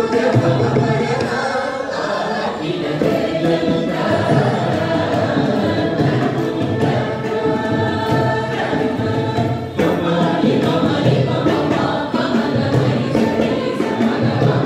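A group of singers sings a Carnatic devotional song together in unison, accompanied by violin and mridangam, whose drum strokes tap on through it.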